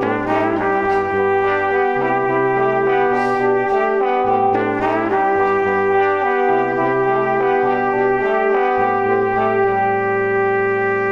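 Background music: sustained held chords over a bass line that changes note every second or two.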